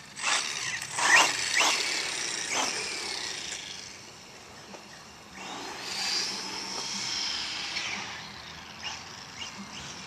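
Exceed Dynamite 1/10-scale RC truck's motor revving in a high whine that rises and falls as the truck speeds up and slows. It is loudest in the first two seconds, dies away about four seconds in, and picks up again a second or so later.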